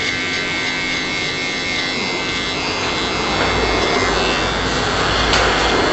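Cordless hair clipper running with a steady whine while its blades cut short hair around the ear. About three seconds in the cutting grows louder and rougher.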